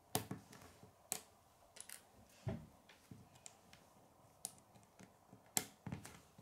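Small plastic Lego pieces clicking as they are pressed onto a Lego plate, a handful of short irregular clicks with one duller thump about two and a half seconds in.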